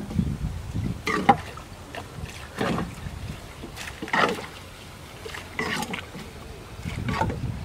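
Water splashing and dripping in a string of short bursts as a fishing net is hauled by hand out of the water onto a small wooden boat, over wind rumbling on the microphone.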